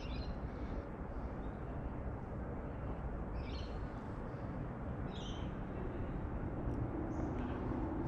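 Steady low outdoor rumble of wind and water with short high bird chirps three times: at the start, about three and a half seconds in and about five seconds in.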